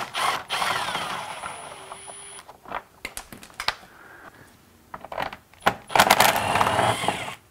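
A hand tool backing out the screws of a Honda S2000's front bumper lip from underneath, making rapid metallic clicking. The clicking comes in two runs, one starting just after the start and one near the end, with a few single clicks between them.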